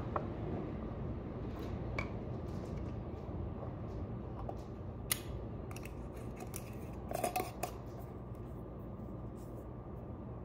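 Scattered light clicks and clinks of kitchen utensils and dishes over a steady low hum, with a short cluster of clatter about seven seconds in.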